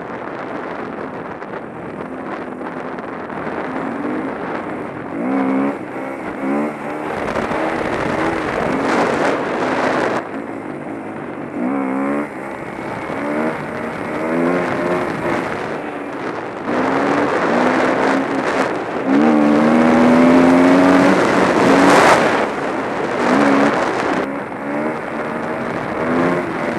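Dirt bike engine under hard acceleration across sand, heard from the rider's helmet. The revs climb again and again as it pulls through the gears, dropping at each shift, with wind rushing over the microphone. It is loudest about two-thirds of the way through.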